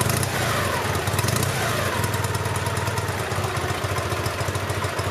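KMZ Dnepr MT-9 sidecar motorcycle's opposed-twin engine idling through its chrome exhaust, with a steady, even beat. The restorers call the rebuilt engine fully sound.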